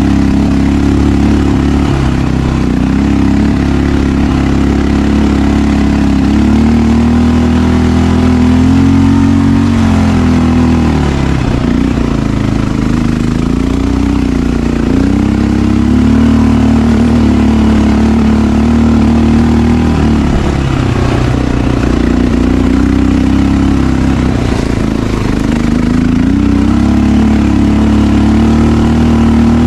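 2007 Honda XR650L's single-cylinder four-stroke engine under load, pulling up a steep, loose dirt climb. Its pitch rises and falls with the throttle and drops off briefly three times.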